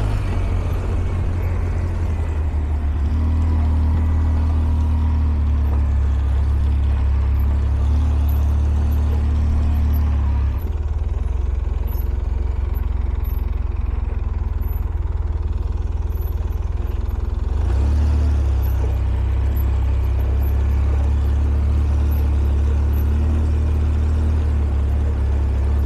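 ATV engine running steadily on a trail ride, a low drone. About ten seconds in, the engine eases off, and it picks up again a few seconds later.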